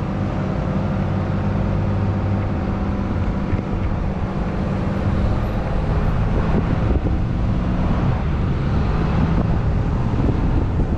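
Cummins turbo diesel pickup engine pulling a heavy gooseneck trailer load, with a steady engine drone and road noise; the drone is strongest in the first few seconds, then gives way to a rougher rumble.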